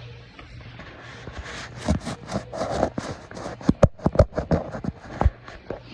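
A person coughing: a rapid, uneven run of many sharp coughs starting about a second and a half in, loudest around the middle, and stopping shortly before the end.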